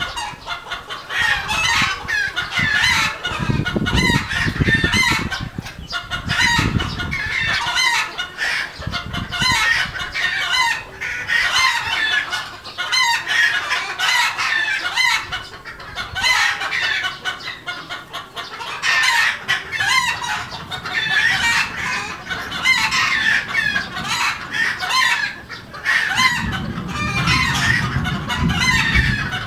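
A flock of red junglefowl clucking and calling as they feed, many short overlapping calls going on without a break. A low rumble comes in twice, early and again near the end.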